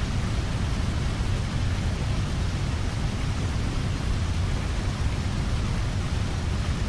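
Steady loud rushing noise: an even hiss over a heavy, flickering low rumble.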